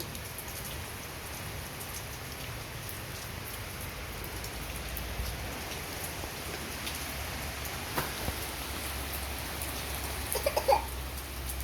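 Steady rain falling in strong wind, the wind rumbling low on the microphone and growing stronger about halfway through. A few sharp knocks near the end.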